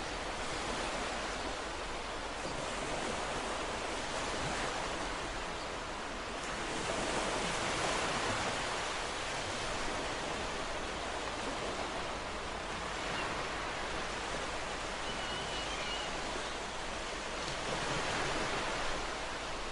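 Ocean waves surging and washing on a shore: a continuous hiss of surf that swells louder about a third of the way in and again near the end, as waves break.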